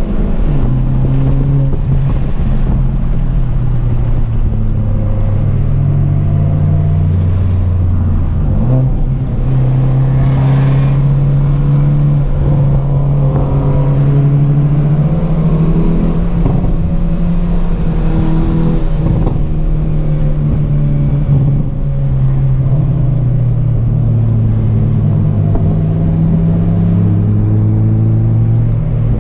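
Car engine note, heard from inside a car's cabin, rising and falling again and again as the driver accelerates, lifts and changes gear on a twisty climb.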